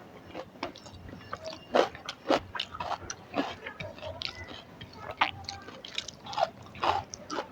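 Close-miked eating sounds: wet, irregular chewing and lip smacks while eating rice and curry, with a few sharper, louder smacks.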